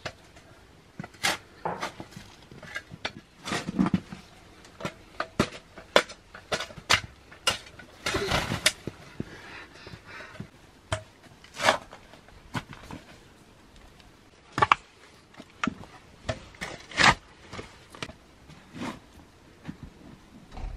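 Metal shovel blade scraping and digging into soil and snow in irregular sharp strokes, with one longer scrape about eight seconds in.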